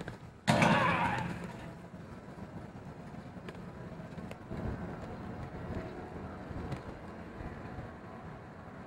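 Street ambience with car traffic going by. A sudden loud noise about half a second in fades away over about a second.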